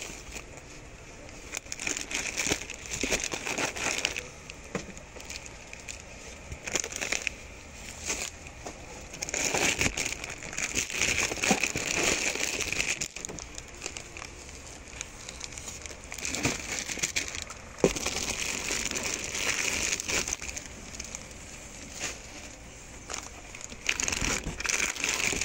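Plastic snack wrappers crinkling and a cardboard box rustling as grocery items are handled, in irregular stretches of a few seconds with quieter pauses between.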